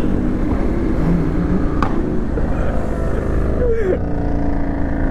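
Motorcycle riding under way: a steady engine and wind rush with no breaks.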